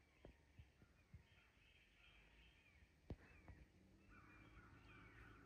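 Faint outdoor quiet with distant bird calls, short wavering chirps that grow busier near the end, and a few soft clicks.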